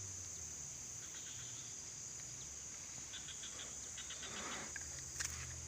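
Steady high-pitched insect chorus, with short trains of rapid chirps repeating every second or two over a faint low hum.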